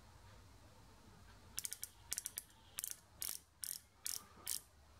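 A micrometer's ratchet stop clicking as its spindle is closed onto a freshly turned steel bar to measure the diameter: two quick rattling runs of clicks, then single clicks about twice a second.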